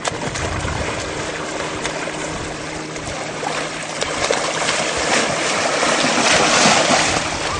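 Water splashing and churning as several people wade and thrash through shallow river water, growing louder about halfway through.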